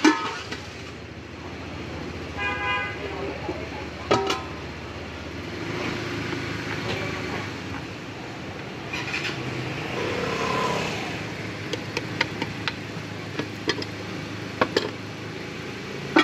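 Street traffic hum with a vehicle horn tooting briefly about two and a half seconds in. Sharp metallic clacks from the cast-iron waffle iron being opened and handled come at the start, about four seconds in, and several more in the last few seconds.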